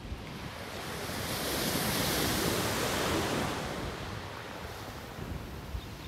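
A wave washing up a pebble beach: a hiss that swells from about a second in, peaks around two to three seconds in, then fades. Low rumble of wind on the microphone underneath.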